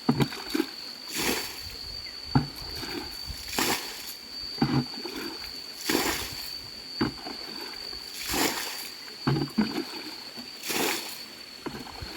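Water splashing in a steady rhythm, one splash about every two and a half seconds, with sharp knocks between the splashes.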